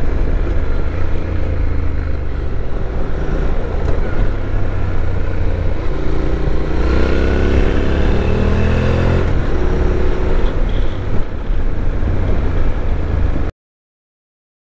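Motorcycle engine running under way, with a constant rush of wind. About six and a half seconds in it accelerates, pitch rising, then drops back near nine seconds as a gear is changed; the sound cuts off abruptly about a second before the end.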